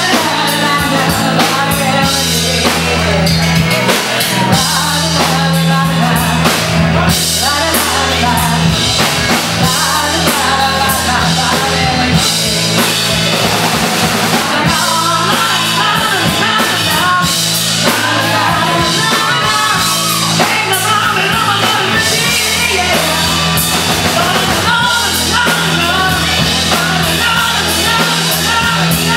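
Live rock band playing: a woman singing into a microphone over electric guitar and a drum kit.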